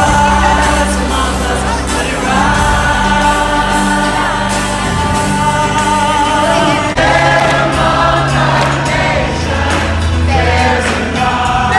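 Live band and several singers performing, recorded from the audience in a large hall. About seven seconds in, the sound cuts abruptly to another song.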